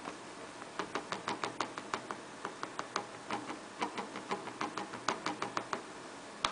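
Thin plastic stick tapping and scraping against a clear plastic dish as pressed powder blush is crushed: soft, irregular clicks, starting about a second in at roughly four a second.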